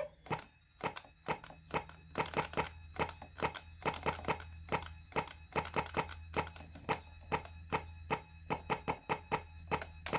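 Circuit-bent Tyco Blue's Clues toy refrigerator's speaker putting out a run of irregular sharp clicks and pops, several a second, over a steady low electrical hum, its voice chip glitching between phrases.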